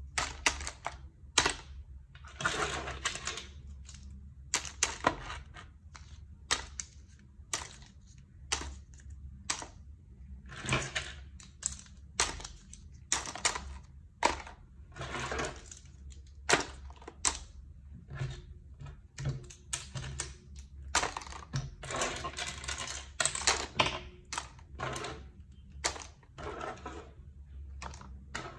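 Plastic letter- and number-shaped moulds dropped one at a time into a tub, clicking and clattering against the growing pile at irregular intervals.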